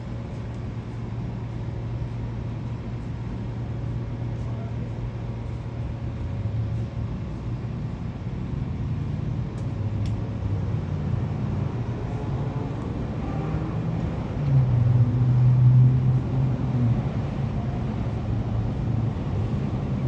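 Street traffic: a low, steady engine hum that swells louder for a few seconds about three-quarters of the way through.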